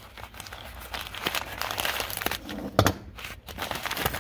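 Brown kraft paper bag crinkling and rustling as it is handled and unrolled, with a sharper crack of the paper a little under three seconds in.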